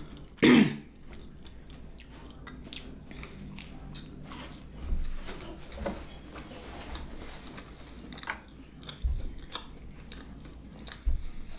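A loud bite into a crisp pizza puff about half a second in, followed by close-miked chewing with many small mouth clicks and a few soft low thumps.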